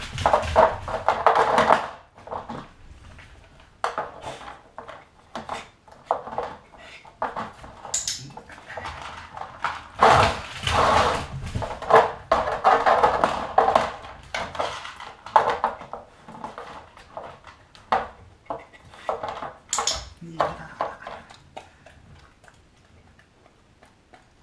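Dog sniffing in quick, noisy bursts at a row of small glass jars with metal lids set in a plastic board, with short clinks and knocks as its nose bumps the jars. The sniffing comes in bouts, busiest at the start and again about ten seconds in, and fades near the end.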